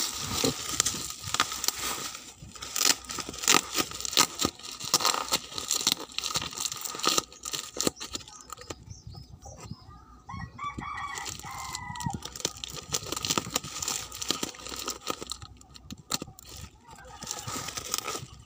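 Plastic parcel wrapping crinkling and rustling as it is handled, then, in a quieter stretch about ten seconds in, a rooster crows once. Handling noise picks up again near the end.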